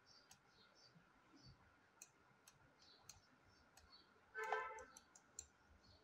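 Faint, scattered clicks of a computer mouse at irregular intervals. A brief pitched sound about four and a half seconds in is the loudest thing.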